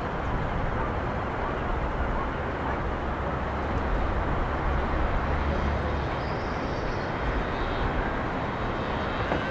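Steady outdoor city ambience: a low rumble of distant traffic.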